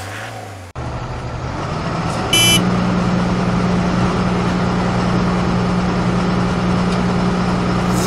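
Truck engine running as a steady drone, a recorded sound effect rather than the toys themselves. It cuts in sharply just under a second in and steps up in level a little after two seconds, where a brief high chirp sounds.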